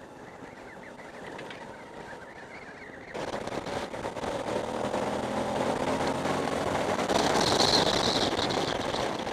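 Kawasaki KLV1000 V-twin motorcycle riding along, its engine running under a steady rush of wind noise. About three seconds in the sound jumps suddenly louder and stays loud.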